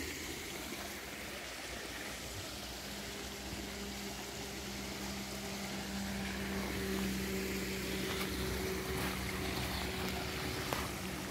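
A motor drones steadily, coming in a couple of seconds in, growing louder for a while and then easing, over the rush of river water. A single sharp click near the end.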